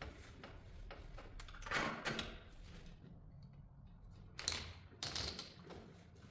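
Straps being pulled through buckles: a few brief rasps and light clicks as the webbing slides through the buckle hardware.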